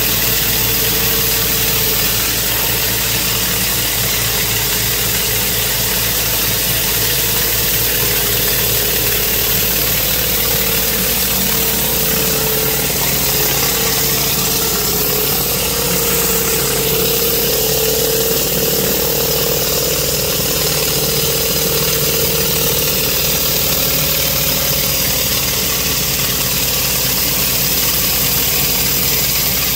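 Pressure washer engine running steadily while a rotary surface cleaner spins over concrete, its water jets making a constant hiss. A steady whine near the middle of the range wavers slightly in pitch partway through.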